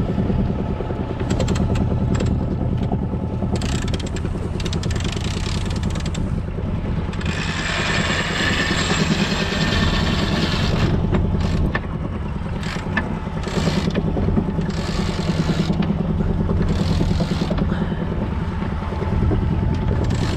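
A boat engine running steadily, with short irregular clicks from a sheet winch being cranked with its handle to trim the sail. About seven seconds in, a rush of water or wind noise swells for a few seconds.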